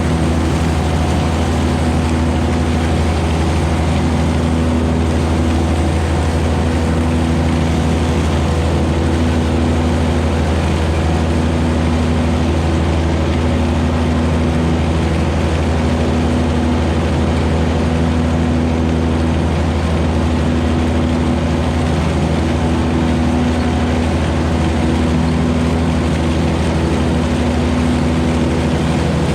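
John Deere 1025R compact tractor's three-cylinder diesel engine running steadily, with a loud low hum.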